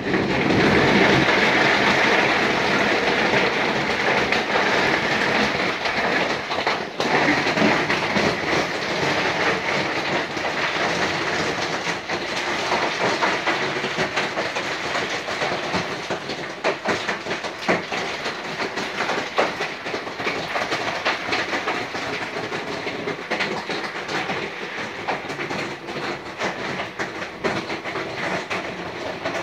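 Heavy rain falling: a dense, even hiss of countless small impacts that slowly grows quieter as the downpour eases off.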